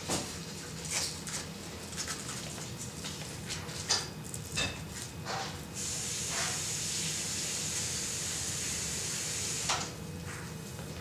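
Handling of a dog bootie being fitted onto a dog's front paw: light clicks and rustles of the bootie and its strap. A steady hiss starts about six seconds in and cuts off about four seconds later.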